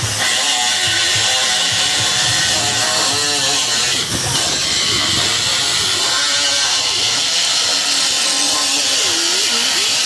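Air-powered cutoff grinder cutting steel at the hub of a condenser fan blade to free it from the old fan motor's shaft: a steady grinding hiss.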